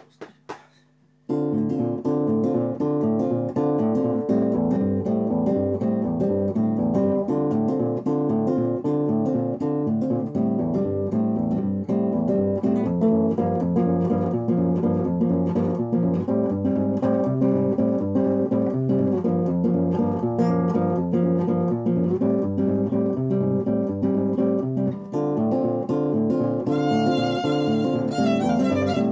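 A bowed violin and a classical guitar playing an instrumental piece together, the guitar strummed and plucked under the violin melody. The music comes in about a second in, after a few soft clicks.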